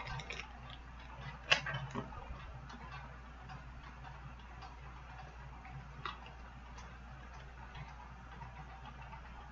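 Small clicks and ticks from a round cardboard pin card being handled and picked at with the fingers. The sharpest click comes about a second and a half in, and there is a low steady hum under it all.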